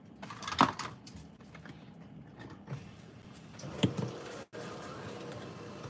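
A few soft knocks and rustles of someone rummaging through a kitchen cabinet among spice containers: one knock under a second in and a sharper one near four seconds in, over a faint steady hiss.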